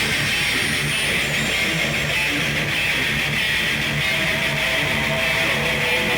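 Harsh, distorted electronic noise music: a loud, steady hiss over a low pulsing beat. A steady mid-pitched tone comes in about four seconds in.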